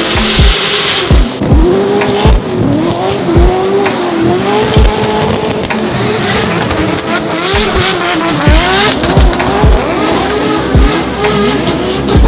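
Drift car engines revving up and down over and over as the cars slide, with tyre squeal, under background music with heavy low thumps.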